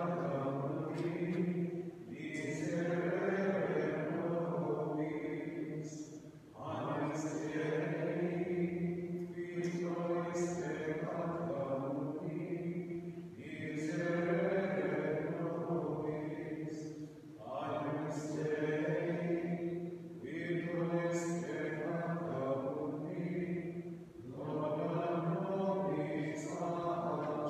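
A voice chanting a liturgical text at Mass, holding steady notes in phrases of a few seconds with short breaths between.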